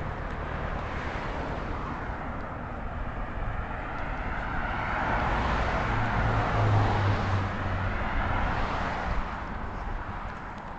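Highway traffic going by: a steady rush of tyres and engines, with one vehicle growing louder to a peak with a low engine hum about six to seven seconds in, then fading.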